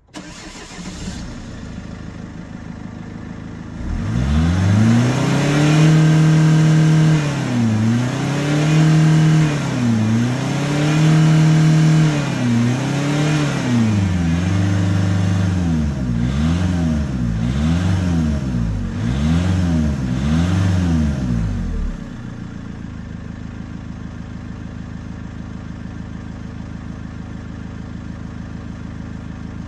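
Mercedes-Benz C220 CDI Sportcoupe's four-cylinder diesel engine heard at its twin tailpipes: idling, then revved from about four seconds in, first with several long held revs and then a run of quick short blips, before dropping back to a steady idle near 22 seconds.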